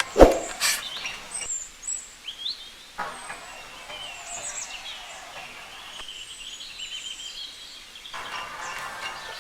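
Small birds chirping and calling in short rising and falling notes over steady outdoor background noise, with one loud knock just after the start followed by a few lighter clicks.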